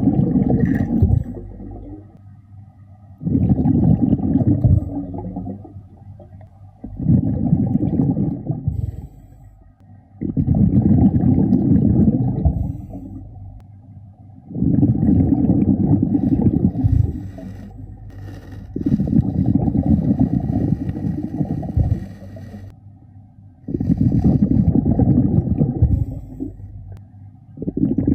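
Scuba diver breathing through a regulator underwater: the low bubbling rush of each exhaled breath, about one every four seconds, with quieter gaps between breaths.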